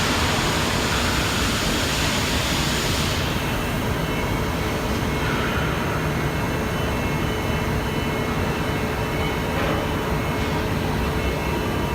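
Okuma MB-8000H horizontal machining center running under power: a steady mechanical hum with a constant tone, and a hiss that cuts off about three seconds in.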